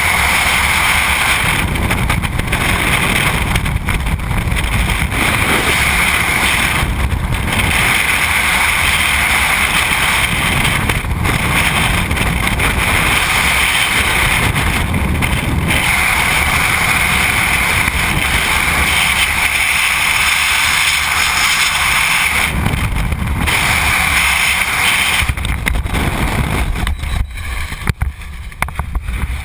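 Freefall wind rushing over the jumper's camera microphone, a loud steady roar that drops off near the end as the parachute opens.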